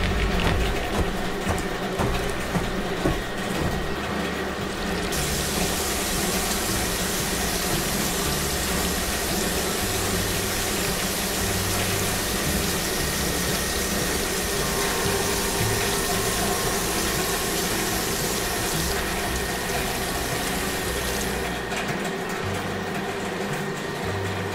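Water spraying in a steady hiss, starting about five seconds in and fading out near the end, over a steady low machine hum, as bottles on a conveyor are rinsed by spray nozzles.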